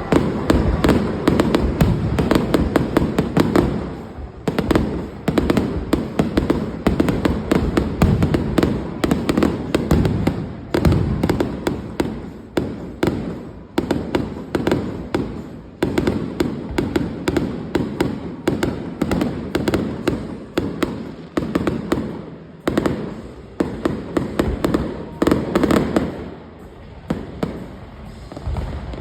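Fireworks display: a dense, continuous run of bangs and crackling pops, thinning out slightly near the end.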